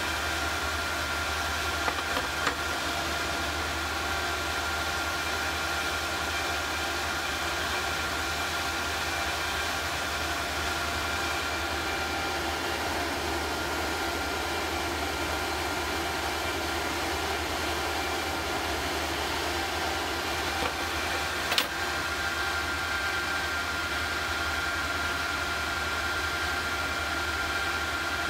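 Small induction heater running steadily while melting bronze: an even hiss and hum with a thin high whine held at one pitch. A few light clicks come about two seconds in and a sharper click about three quarters of the way through.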